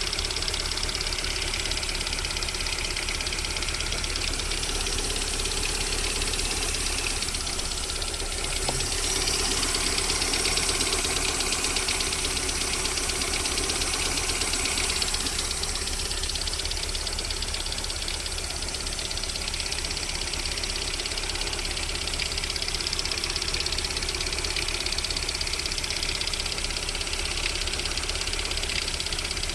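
Lada VAZ-21127 1.6-litre 16-valve four-cylinder engine idling with a steady, rhythmic knock. This is the unexplained knock the owner hears while the engine warms up to about 40 °C, which then goes away.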